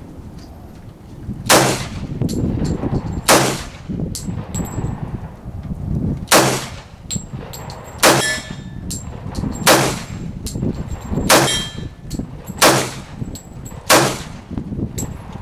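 A .45 Ruger semi-automatic handgun fired eight times at an uneven pace, the shots about one and a half to three seconds apart, each a sharp bang with a short ringing tail.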